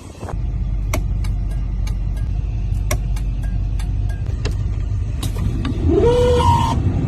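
Car engine running with a steady low exhaust rumble that sets in suddenly about a third of a second in, with sharp ticks scattered through it. Near the end a short tone rises in pitch.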